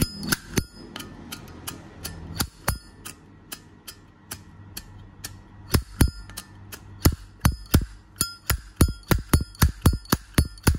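Zippo lighter's metal lid flicked open and snapped shut again and again, giving sharp metallic clicks with a short ring. They come irregularly at first, then faster, about three a second, near the end.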